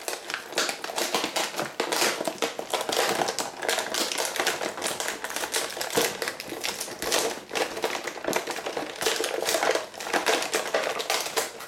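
Stiff clear plastic packaging of an action-figure box crackling and clicking as hands pry it open and work the cardboard backing free: a long run of rapid, irregular clicks and crinkles.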